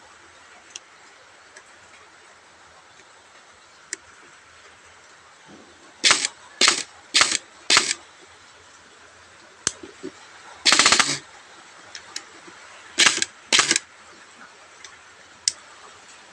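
Airsoft electric gun (AEG) gearbox test-firing on semi-auto: four single sharp shots about half a second apart, then a short rapid burst of about half a second, then two more single shots, with faint clicks in between. Each trigger pull gives one clean cycle, the sign that the semi-auto fault is fixed.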